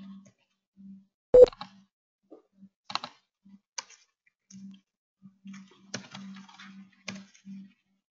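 Scattered computer keystrokes and mouse clicks, a handful of separate taps with the loudest about a second and a half in, and a faint low hum coming and going between them.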